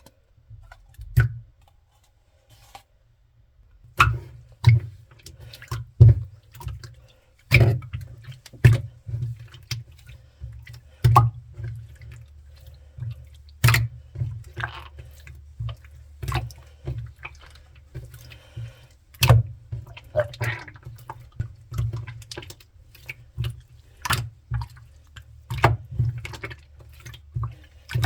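Clear slime being squished and stretched by hand, making irregular wet clicks and pops. It starts about four seconds in, after a quiet start.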